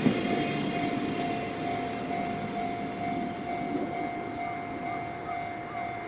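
Tail of a JR Freight container train running past and fading as it draws away. A level crossing's electronic warning bell rings steadily in a quick, even beat over it.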